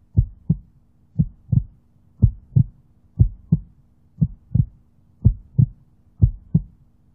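Heartbeat sound effect: steady lub-dub double thumps, about one beat a second, over a faint low hum.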